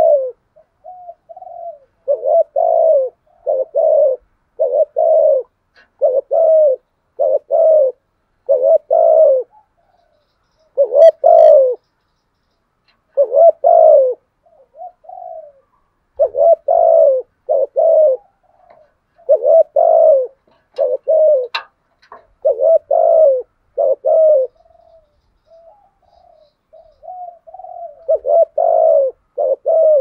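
A male spotted dove (chim cu gáy) close up, giving its repeated fighting coo (gù đấu): short coos, mostly in close pairs, about one a second, with softer low notes between some phrases and a few pauses of a second or two.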